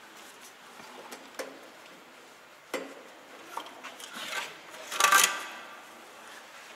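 Metal clinking, knocking and scraping as an air compressor is worked loose and pulled off a truck diesel engine. A sharp knock comes about two and a half seconds in, and the loudest metal scrape about five seconds in.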